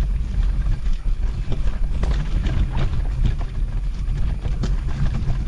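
Bicycle rattling and clattering over a rough off-road track, with irregular knocks over a steady low rumble.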